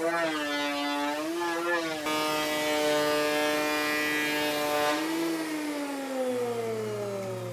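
Electric hand planer cutting along a timber beam: the motor's high whine dips and recovers in pitch under load, holds steady, then falls away as the motor winds down a little after five seconds in.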